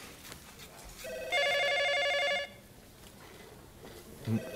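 Telephone ringing: one ring of about a second and a half starts about a second in, and the next ring begins near the end.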